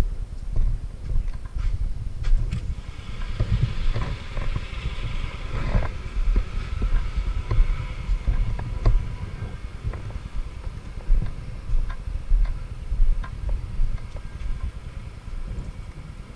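Kymco 125 cc scooter being ridden along: engine and road noise with a heavy low rumble, growing quieter near the end.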